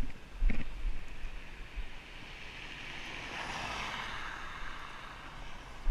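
A vehicle passing on a wet road: the hiss of its tyres on wet pavers swells over a second or two, peaks, then fades away. A few low thumps come near the start.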